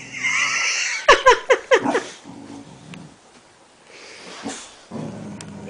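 Boxer dogs whining with a high, falling note, then a rapid burst of about five barks about a second in.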